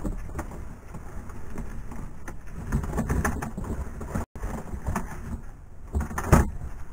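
Plastic garbage bags rustling and bumping as they are handled, over a low wind rumble on the microphone. A louder rustle near the end as a full bag is lifted.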